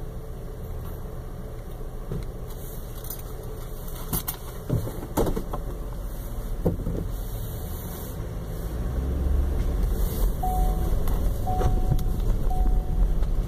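Car engine idling, heard from inside the car, with a few sharp knocks about four to seven seconds in. From about eight seconds the engine grows louder as the car gets moving, and from about ten seconds a short chime beeps about once a second.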